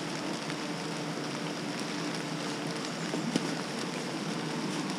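Steady hiss of rain falling in the forest, with a faint steady hum underneath and a few faint clicks around the middle.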